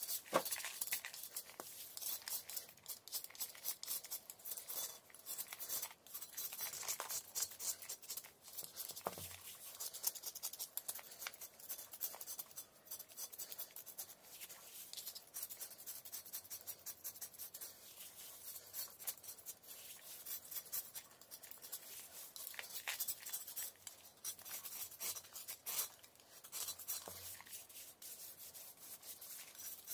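A thin knife blade scraping the surface of a large block of chalk, a long run of short scratchy strokes one after another.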